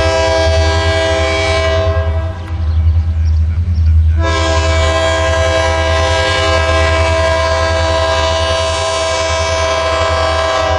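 Diesel locomotive's multi-note air horn: one blast that stops about two seconds in, then after a short gap a long blast from about four seconds in, over the low steady rumble of the locomotive's engine.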